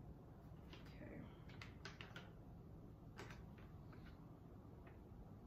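Faint, scattered clicks and crinkles of a clear plastic piping bag and a paintbrush being handled, over a low room hum.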